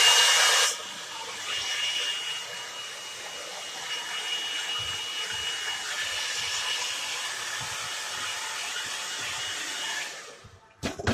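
A small electric blower motor running steadily with a thin high whine: loudest for the first second, then steadier and quieter, cutting off about ten seconds in.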